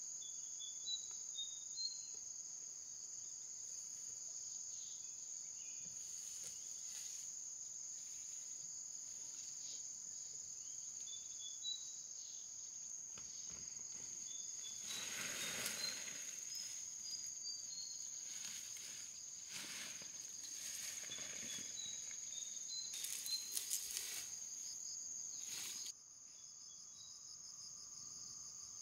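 Insects chirping in a steady, high continuous chorus, with scattered short high chirps and a few brief rustling noises. The chorus changes abruptly near the end.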